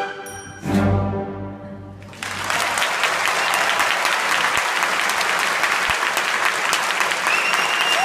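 A typewriter bell rings once, then the orchestra's final chord sounds and dies away. About two seconds in, audience applause takes over and goes on steadily.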